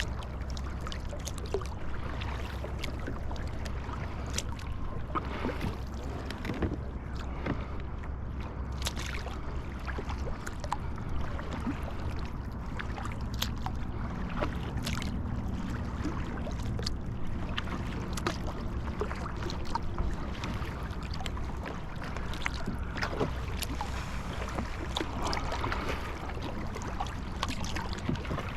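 Kayak on open water: the paddle splashes and the water laps at the hull at irregular intervals, over a steady low rumble.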